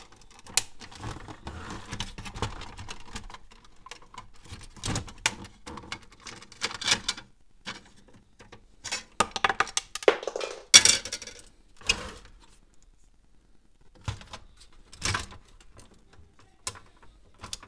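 Plastic housing of an HP Photosmart C3180 all-in-one printer being pried apart and handled: irregular clicks, snaps, knocks and scraping of plastic parts, the loudest a sharp crack about eleven seconds in.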